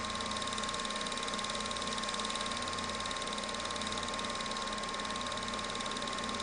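Film projector running: a steady mechanical whir with a rapid, even clatter from the film advance and a thin steady whine.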